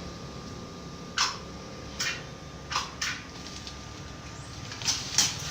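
A handful of short, sharp knocks and clicks at irregular intervals, two close together near the end, over a faint steady hum.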